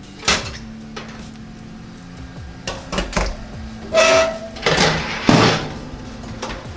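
Metal pizza pan and the oven rack of a NuWave Bravo XL countertop smart oven clattering and scraping as the pan is pulled out: a few sharp clicks, then loud clanks with a brief metallic ring and a long scrape about four to five and a half seconds in.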